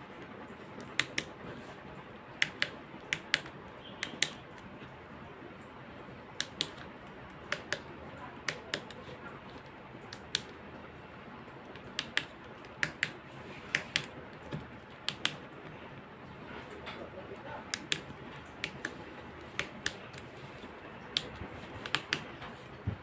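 Small push-button switches clicking irregularly, often in quick press-and-release pairs, as they are worked to drive the motors of a homemade robotic arm.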